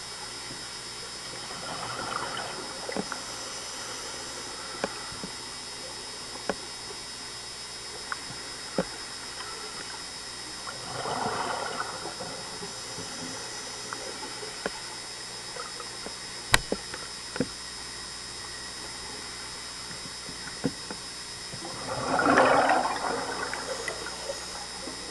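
Scuba regulator exhaust bubbles heard underwater, three breaths about ten seconds apart, the last the loudest, over a steady hiss. Scattered sharp clicks fall between the breaths.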